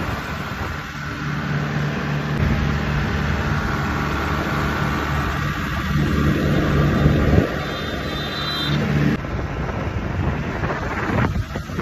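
Tractor engine running steadily with a low, even hum while the tractor drives along a road, over a steady rush of road and wind noise. The sound changes abruptly about nine seconds in.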